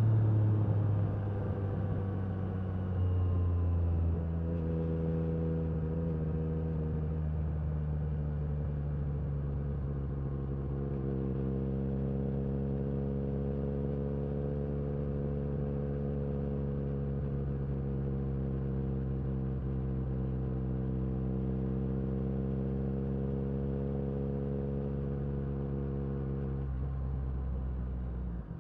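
2022 Yamaha MT-09 SP's inline-three engine through an Akrapovic carbon racing exhaust, heard while riding. The pitch falls as the bike slows in the first couple of seconds, then it holds a steady drone at cruising speed with small rises and falls in pitch, easing off near the end.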